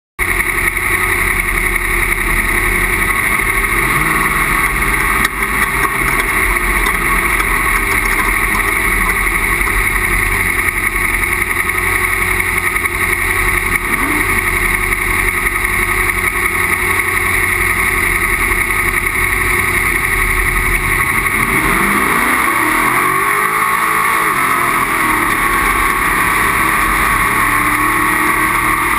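Off-road race vehicle's engine running at speed, loud and steady, with the engine pitch sweeping down and back up about three-quarters of the way through.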